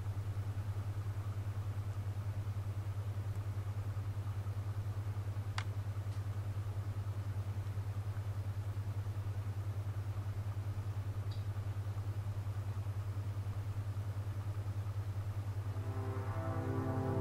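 A steady low hum, with a single sharp click about five and a half seconds in. Music comes in near the end.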